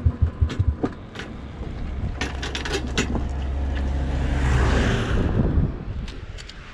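Motorcycle engine thumping as the bike slows to a stop, followed by a few sharp clicks and knocks. Then another vehicle's rumble and tyre hiss swell and fade, loudest about four to five seconds in.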